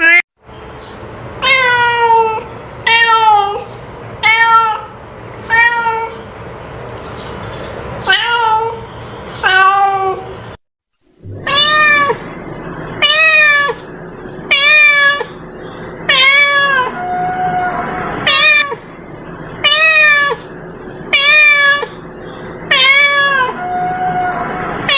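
A domestic cat meowing over and over, about one loud meow every second and a half, each one dropping in pitch at the end. The meowing stops for about a second near the middle, then carries on at the same pace.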